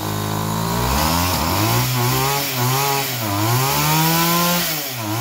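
Motoboard's small two-stroke engine running at high revs, its pitch dipping and picking back up several times as the throttle is worked. It is running but not yet smoothly, its carburettor still being adjusted.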